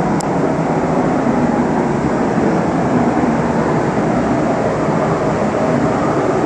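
Spray booth's ventilation fans running: a steady, loud rush of air with a low hum.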